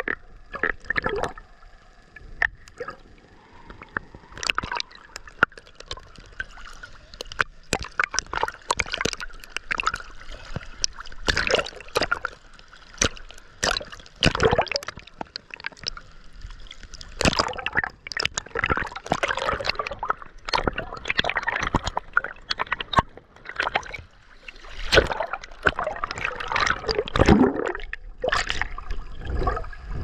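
Sea water splashing and sloshing over a camera held at the surface by a swimmer, the camera ducking under and back up, gurgling while it is under. Irregular sharp splashes come one after another.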